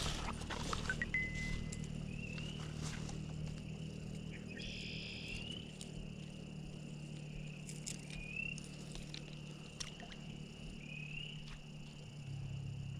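Spring peepers calling: a steady high ringing chorus with single short rising peeps every few seconds. A low steady rumble runs underneath, with a few handling clicks in the first second.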